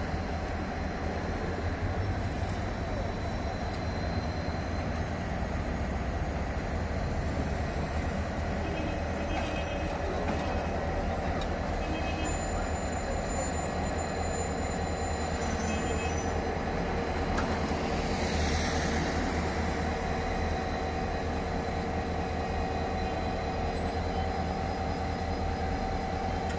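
TCDD DE 33000-series diesel-electric locomotive running steadily during a slow shunting move, its engine a continuous low drone with a steady hum above it. A brief falling whoosh comes about two-thirds of the way in.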